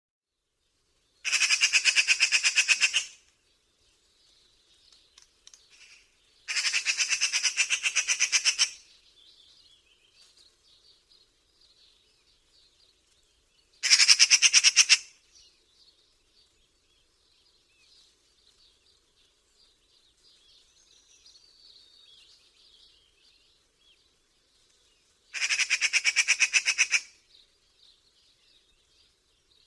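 Magpie chattering: four bursts of fast, harsh rattling notes, each lasting one to two seconds, with faint, softer calls in between.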